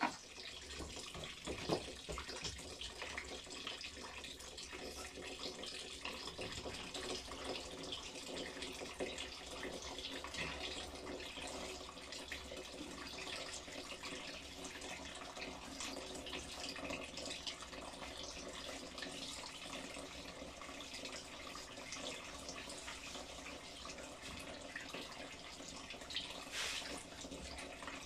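Grape must trickling and dripping steadily out of a wooden-staved basket wine press, a continuous splashy trickle dotted with small drips.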